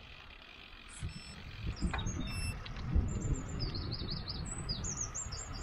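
Small birds chirping in quick repeated phrases over a low rumble of wind and road noise from a moving bicycle. The rumble starts about a second in and is the loudest sound.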